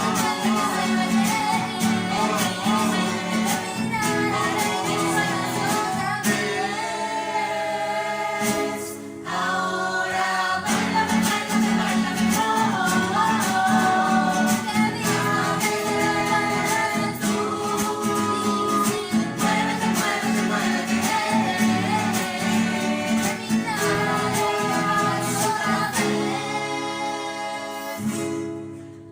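A rondalla ensemble, several voices singing together over strummed acoustic guitars, performing an upbeat song. The music drops away near the end.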